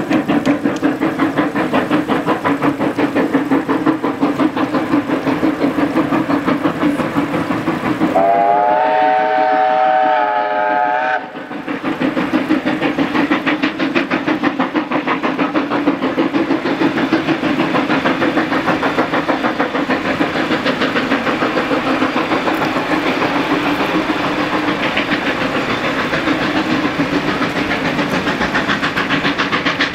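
NZR JA class 4-8-2 steam locomotive JA 1275 working hard up a grade, its exhaust beating in a fast, even rhythm. About eight seconds in, its steam whistle sounds a chord for about three seconds.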